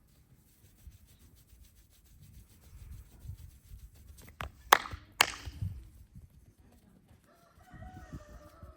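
Hands rubbing and working the head and neck during a massage, with three sharp snapping cracks about halfway through. Near the end, a faint wavering pitched call sounds in the background.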